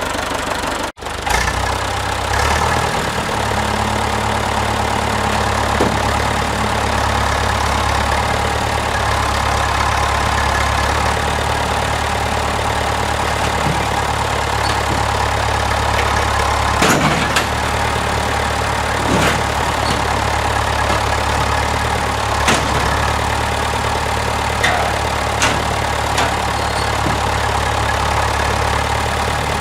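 Farm tractor's engine running steadily while its front-end loader lifts a chained-up pickup truck box, with a few sharp knocks along the way.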